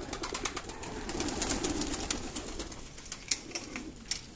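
A crowded flock of domestic pigeons cooing in a low steady murmur while feeding on scattered grain, with many quick irregular clicks of beaks pecking on the concrete floor.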